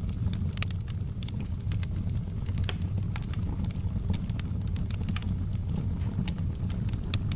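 Wood fire burning: irregular sharp crackles and pops, several a second, over a steady low rumble of flames.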